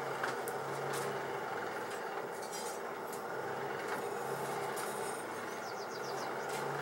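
Steady rushing of a coal forge fire burning hard, with a few faint clinks of iron rods or tongs being moved in the fire.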